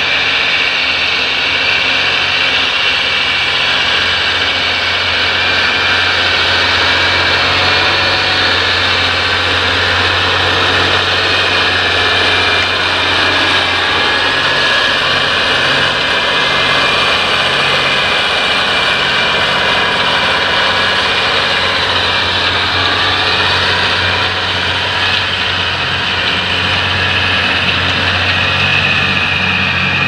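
John Deere 8360RT tracked tractor's 9-litre six-cylinder diesel running steadily under load as it pulls an eight-furrow reversible plough through heavy soil, a constant low drone with a faint high whine over it.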